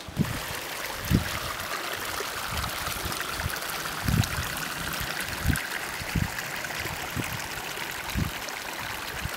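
Hot spring water trickling and flowing steadily through small rock- and log-edged pools, with occasional short low thumps.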